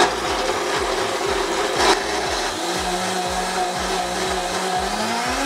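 Blendtec blender starting at full power and running steadily, its blade churning hot water in the plastic jar. A short knock about two seconds in.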